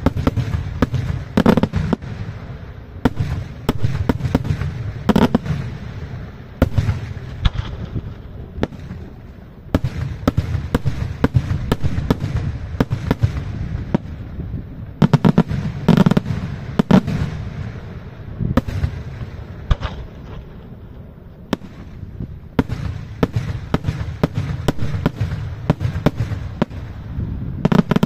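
Daytime fireworks display: aerial shells bursting overhead in a continuous, irregular string of sharp bangs with a low rumble between them. The bangs come in heavier clusters a second or two in, around five seconds, in the middle and near the end, and thin out briefly a little after the middle.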